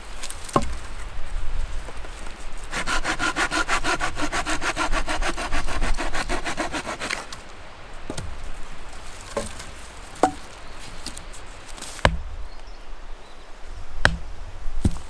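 Hand saw cutting through wood in quick, even strokes for about four seconds, followed by a few separate knocks of wood.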